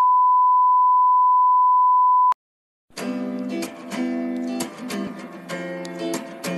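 A steady high beep tone lasting about two seconds that cuts off abruptly; after a brief silence, strummed guitar music starts about three seconds in.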